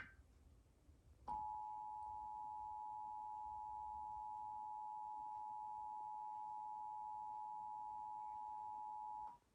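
Emergency Alert System attention signal: the steady two-tone 853 and 960 Hz dual tone, starting about a second in and holding for about eight seconds before cutting off. It announces a statewide Required Monthly Test message.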